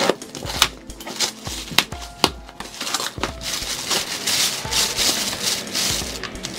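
Cardboard box being opened by hand, its flaps giving a few sharp knocks and scrapes, then a plastic bag crinkling and rustling for a couple of seconds as it is pulled out of the box.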